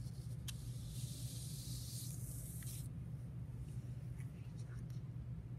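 Sheets of paper being slid across a tabletop. There is a light tick about half a second in, then the paper hisses for about two and a half seconds and stops, and a few faint ticks follow. A steady low hum runs underneath.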